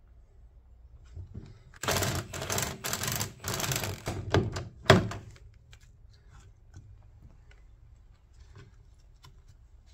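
Impact wrench hammering in several short, loud rattling bursts on a rusted rear-suspension fixing, starting about two seconds in and stopping about three seconds later. Nothing comes loose: the socket is on a rusted piece that is not a bolt.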